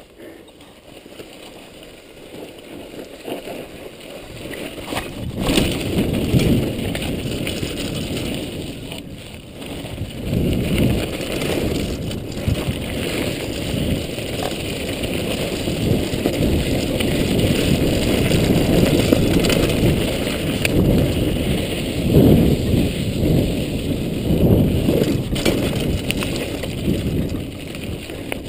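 Mountain-bike ride noise picked up by a chest-mounted GoPro: wind buffeting the camera and tyres rumbling and rattling over a dirt trail. It grows much louder about five seconds in and stays a loud, uneven rumble.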